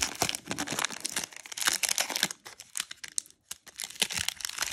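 Foil trading-card pack (Upper Deck Marvel Allure) being torn open and crinkled by hand. There is a dense crackle for about the first two seconds, then sparser crinkles and rustles as the opened wrapper is handled.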